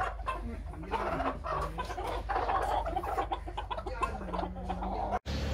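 Chickens clucking: a run of short clucks mixed with a few low, soft calls, cutting off suddenly near the end.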